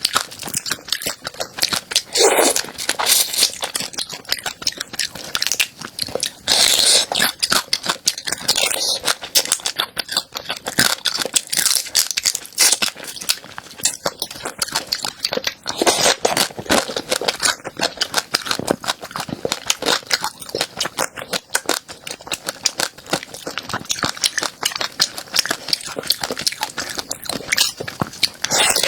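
Close-up chewing and biting of a crunchy food: a dense, continuous run of sharp crunches and crackles.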